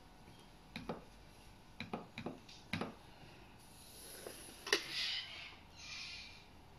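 Plastic drafting instruments handled on a drawing board: several light taps and knocks as a set square is moved and set down, a sharper knock about two-thirds through, then a scraping rustle as the set square and straightedge slide over the paper.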